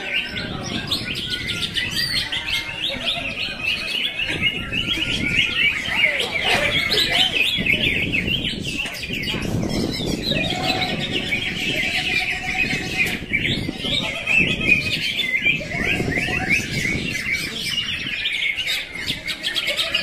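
Many caged cucak ijo (greater green leafbirds) singing at once: a dense, overlapping chorus of rapid high chirps and whistles, with a few lower whistled phrases about halfway through.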